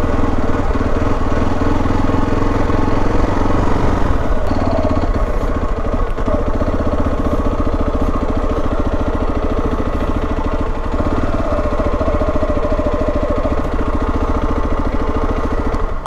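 Motorcycle engine running at low, steady revs with an even firing beat, cutting off abruptly right at the end as it is switched off.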